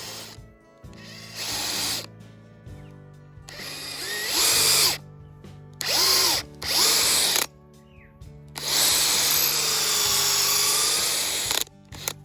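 Power drill boring holes into a wooden stump in four bursts, the last the longest, its motor pitch sagging and recovering as the bit bites. Background music runs underneath.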